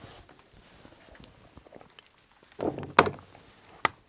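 A large leather workpiece being slid and repositioned across a stone slab and wooden workbench: a soft rustle, then a dull thud and two sharp knocks near the end.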